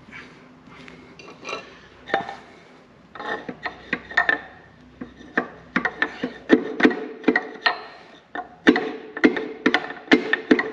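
Repeated hammer blows driving a piston out of a rusty cylinder bore of the Karrier K6's spare engine. Light, scattered taps at first, then from about halfway a steady run of harder strikes, two to three a second, each with a metallic ring.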